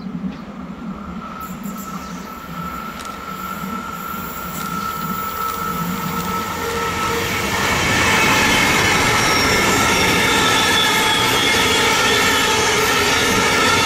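A train approaching and passing close by: a thin high tone is heard as it comes nearer, then about eight seconds in the train reaches the spot and its loud rolling noise, with several high whining tones over it, holds steady.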